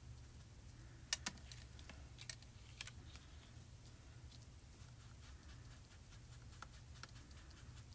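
Faint scattered clicks and light scuffing as a small sponge tool rubs pan pastel through a plastic stencil onto card, the clearest clicks about a second in and again near three seconds, over a low steady hum.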